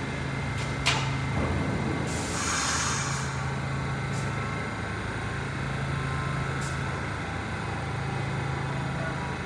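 R68 subway car standing at the platform, humming steadily. A sharp click comes about a second in, and a short hiss of air follows about two seconds in.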